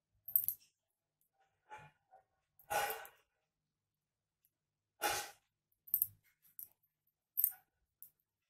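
Quiet, scattered sounds of hand knitting: short clicks and rustles of the needles and wool, and two longer breath-like exhalations about three and five seconds in.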